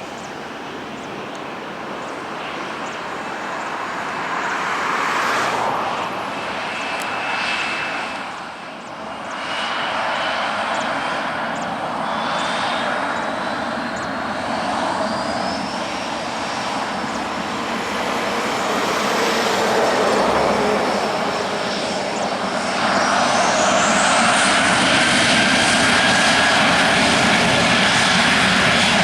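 Boeing 737-700's CFM56-7B turbofan engines spooling up for take-off: a whine climbs slowly in pitch, then rises sharply as the engine noise grows much louder about two-thirds of the way through and stays loud.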